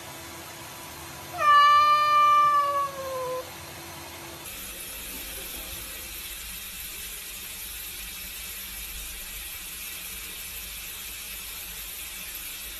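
A cat gives one long meow of about two seconds, dropping slightly in pitch at the end. Under it runs the steady hiss of a tap running into a sink.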